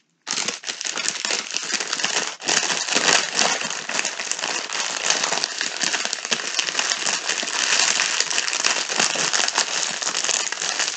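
Clear plastic film on a diamond-painting canvas crinkling as it is handled and folded: a dense, continuous crackle with a brief break about two seconds in.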